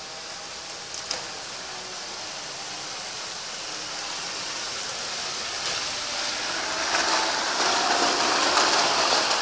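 Off-road SUV driving toward the microphone over a wet, puddled dirt track: a steady hiss of tyres on water with a faint engine note, growing louder over several seconds as it comes close. A single short click about a second in.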